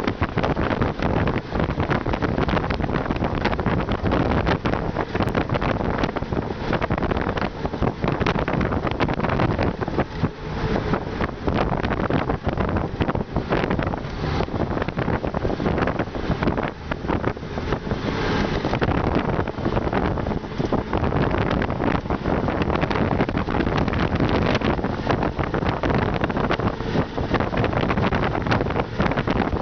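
Wind and road noise inside the cab of a moving vehicle: a continuous rushing that buffets the microphone, wavering constantly in loudness.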